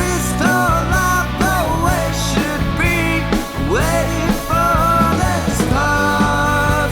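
Rock band music in a grunge style: drums, bass and keys under a lead melody that bends and slides up and down in pitch.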